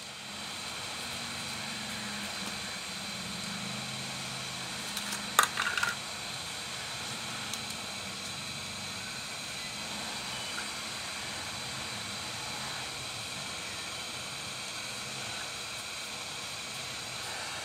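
Steady background hiss with faint high tones, and a single sharp click about five seconds in.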